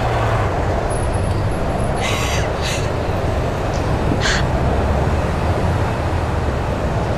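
Steady low rumble of outdoor ambient noise, with a few brief high scratchy sounds about two seconds in and again about four seconds in.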